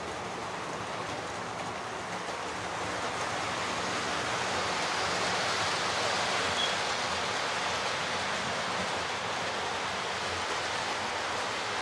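Model trains running on the layout's tracks: a steady rushing whirr of wheels and small motors, swelling a little towards the middle and easing off again.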